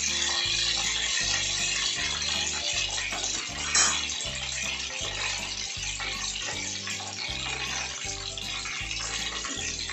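Samosas deep-frying in hot oil in a kadai, a steady sizzling and bubbling, with one brief louder spurt about four seconds in. Background music with a steady beat plays underneath.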